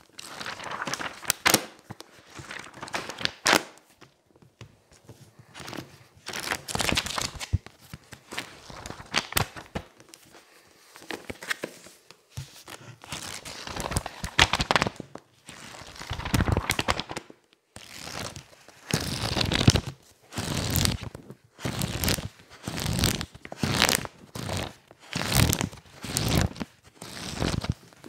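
Paper pages of softcover books being rapidly riffled and flipped, in repeated fluttering rustles. In the second half the flips come regularly, about one a second.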